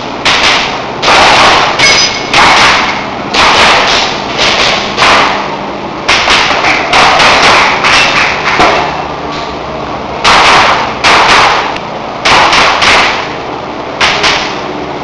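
Airsoft pistol fired in a rapid, uneven string of about two dozen shots, one to two a second, each a sharp report with a short echo; one shot about two seconds in is followed by a brief ringing tone.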